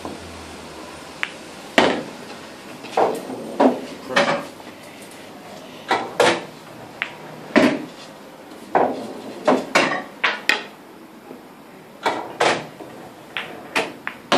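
Pool balls on a coin-operated pub pool table: the cue striking the cue ball, balls clacking together and off the cushions, and potted balls dropping into the pockets. A string of sharp knocks and clacks, some in quick pairs.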